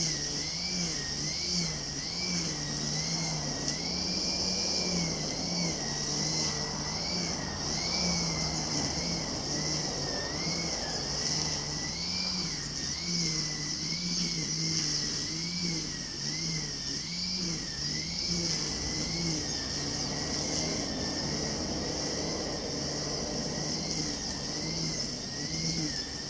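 Small engine running at high revs, its pitch rising and falling about once a second as the load comes and goes, over a steady high hiss.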